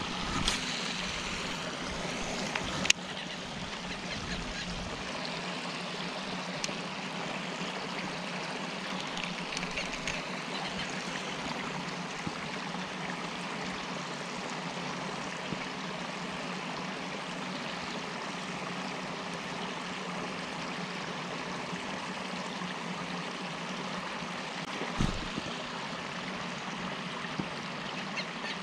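Steady rush of running water, with a low steady hum beneath it. A sharp click comes at the start and another about three seconds in, and a short thump comes near the end.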